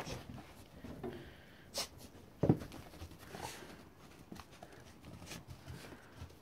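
Two dogs scuffling close together in snow: scattered crunching and scuffing of paws in the snow, with one sharp thump about two and a half seconds in.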